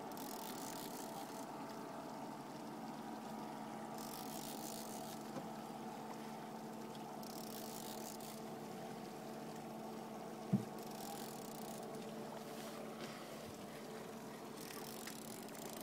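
Boat motor running steadily at low speed, a constant hum, while a salmon is reeled in alongside. A single sharp thump about ten and a half seconds in.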